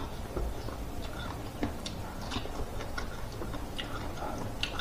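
Close-up chewing of a mouthful of corn on the cob, with small wet mouth clicks at irregular intervals.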